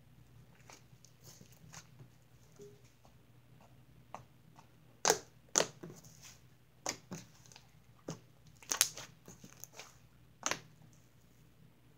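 Butter slime being poked and squeezed by hand, giving short, sharp pops and clicks as air is pressed out of it. The first few seconds hold only faint ones; from about five seconds in they come louder, every half second to a second.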